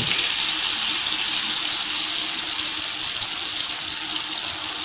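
Hot oil sizzling steadily around semolina-batter puras frying in a pan, their second side cooking just after being turned over.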